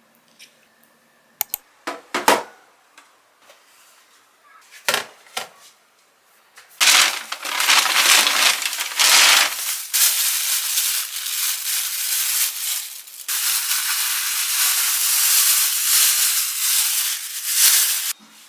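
A few sharp clicks and taps, then, about seven seconds in, clear plastic bag packaging crinkling and rustling loudly and irregularly for about ten seconds as it is worked off a long coiled stick of garae-tteok rice cake.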